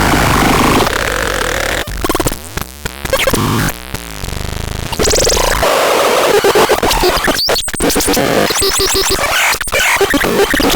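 Synthesizer playing harsh, noisy electronic sounds: a dense, chaotic texture that thins out briefly into wavering, gliding tones a couple of seconds in, then comes back full and choppy.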